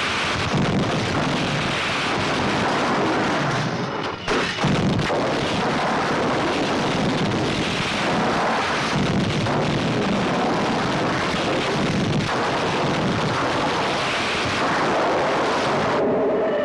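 Film sound effects of explosions and burning fire, a dense, continuous blast and rumble with a short dip about four seconds in; it cuts off just before the end.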